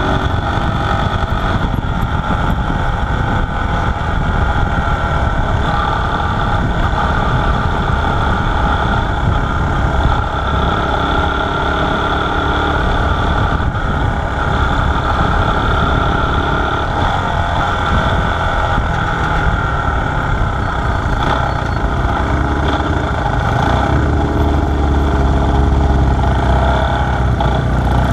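1969 Honda SL90's small single-cylinder four-stroke engine running steadily at cruising speed, mixed with wind on the microphone. Near the end, as the bike slows, a heavier low rumble comes in.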